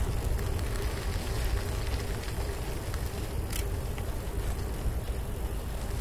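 Riding a bicycle, with wind rumbling on the camera microphone over tyre noise from the trail surface. There is a faint steady hum and a few light clicks.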